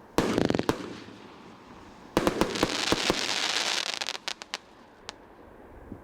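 Fireworks crackling: a short volley of rapid sharp pops just after the start, a longer dense crackling volley from about two seconds in to about four and a half, then a single pop near the end.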